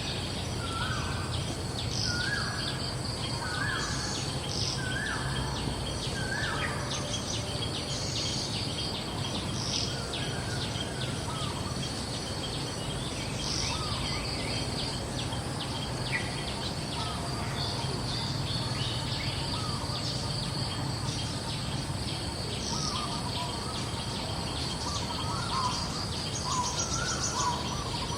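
Birds calling in short repeated phrases, with higher chirps, over a steady high insect drone and a low steady hum.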